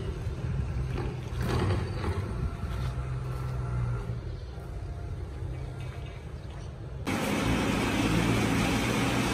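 Low, steady engine rumble from working machinery. About seven seconds in the sound cuts abruptly to a louder, hissier engine noise, where a forklift is running.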